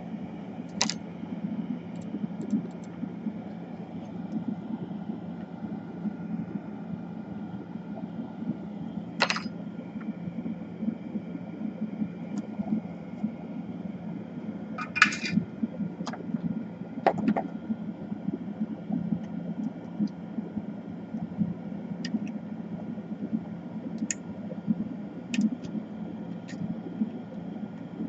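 Steady low hum with scattered short, sharp clicks and taps as a laptop motherboard, a card and hand tools (pliers, soldering iron) are handled on a workbench.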